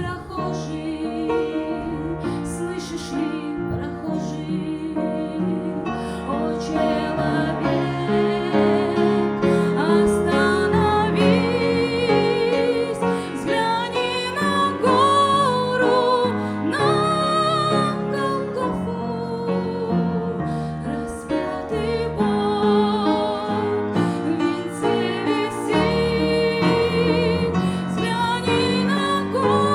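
A woman singing a slow song with vibrato over keyboard accompaniment.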